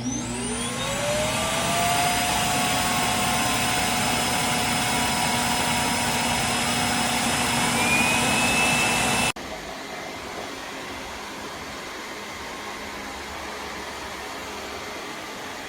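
Self-emptying base of a Dreame L10s Ultra robot vacuum running its auto-empty cycle. A suction motor spins up with a rising whine, runs steadily, and cuts off suddenly about nine seconds in, leaving a quieter steady hum.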